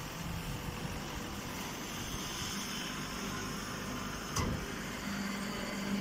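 Hydraulic straw baling press running, a steady mechanical noise with a single knock a little past four seconds in and a steady low hum setting in about five seconds in.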